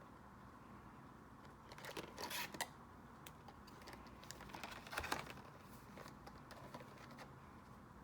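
Paper or packaging being handled: brief crisp rustling and a few light taps, loudest about two seconds in and again about five seconds in.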